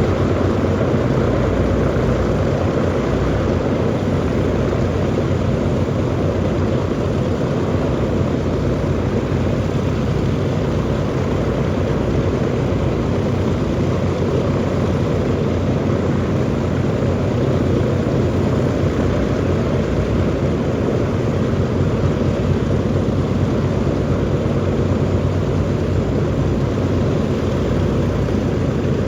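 The B-29 Superfortress's Wright R-3350 eighteen-cylinder radial engines running steadily with propellers turning, a dense, even drone with a deep hum underneath.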